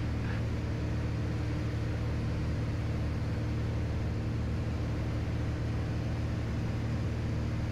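Steady cruise drone of a Piper Turbo Arrow's turbocharged six-cylinder Continental engine and propeller, heard inside the cabin. It is an even, unchanging hum with a few steady low tones.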